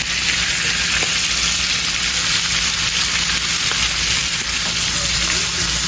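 Bacon frying in a pan, a steady loud sizzle and crackle of fat.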